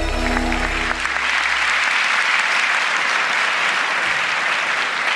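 Audience applauding steadily; a sustained music chord with a deep bass note dies away in the first couple of seconds.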